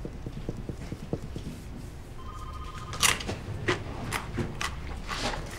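A short electronic ring, a warbling two-note trill like a telephone, about two seconds in, then a run of sharp clicks and knocks over a low room hum. The loudest click comes about three seconds in.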